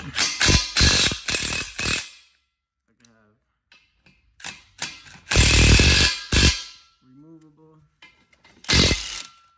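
Cordless impact wrench hammering on rusty suspension bolts in short bursts: a quick string of bursts in the first two seconds, a longer burst about halfway through, and a brief one near the end.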